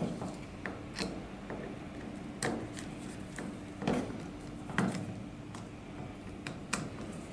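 Scattered sharp clicks and light knocks, about six in all, of small metal terminal links and a screwdriver being worked on a fan motor's terminal block as the links are fitted and screwed down.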